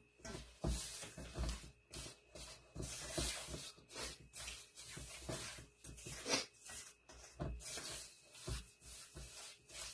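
A spatula stirring and scraping an egg into creamed butter and sugar in a stainless steel mixing bowl, a run of short scraping strokes about one or two a second.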